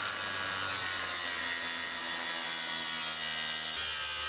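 Cordless angle grinder with an abrasive cut-off wheel, cutting through black steel pipe: a steady high grinding whine with a hissing edge. The hiss grows brighter near the end as the wheel bites deeper.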